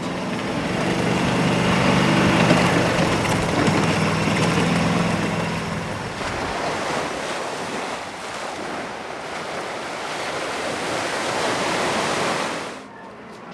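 A golf cart driving, with a low steady hum under wind noise for about the first six seconds, then waves breaking and washing onto a sandy beach, with wind on the microphone. The sound drops away sharply near the end.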